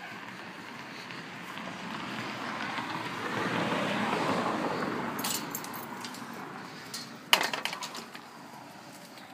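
A vehicle passing on the road, its noise swelling and then fading over a few seconds. About seven seconds in comes a sharp metallic clink with a short rattle.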